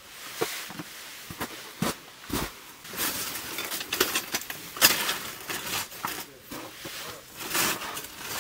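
A folding camp cot being tipped over and handled for packing: its metal frame knocks and clatters irregularly, with the cot fabric rustling between the knocks. The loudest knock comes about five seconds in.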